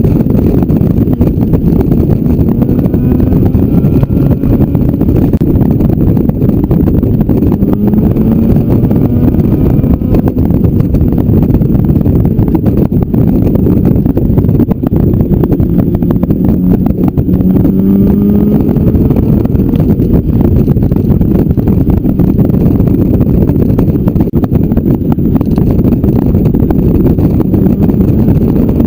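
Motorcycle engine running at road speed, its pitch rising and falling a few times as the throttle changes, under heavy wind buffeting on the on-board microphone.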